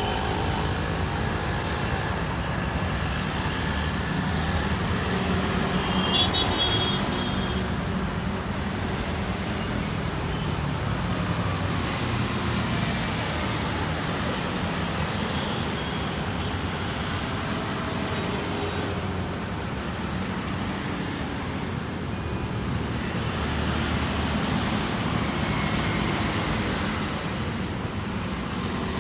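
Steady rumble of road traffic, with a louder passing vehicle about six seconds in.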